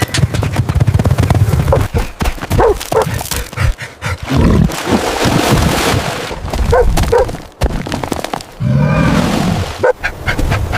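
A dog barking and whimpering in short calls, with a longer whining call near the end, over continuous low noise.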